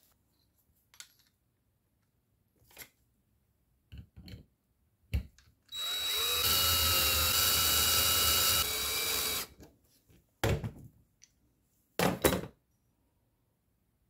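DeWalt 20V cordless drill spinning a nylon-insert lock nut down a stainless bolt, running as a steady whine for about four seconds in the middle. Short clicks and knocks of the hardware and pliers being handled come before and after it.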